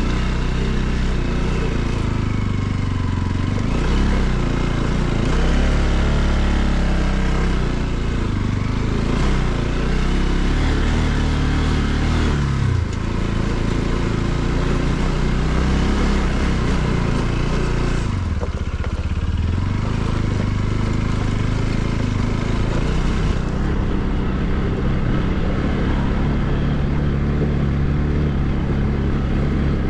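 Bajaj Pulsar NS200's single-cylinder four-stroke engine running under way at low speed on a rough dirt track. Its pitch climbs and then drops sharply twice, about 12 and 18 seconds in.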